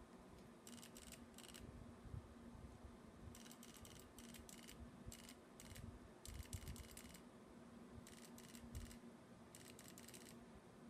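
Faint, rapid clicking in about six short bursts of several clicks each from the trigger of a Dye electronic paintball marker being pulled in quick succession.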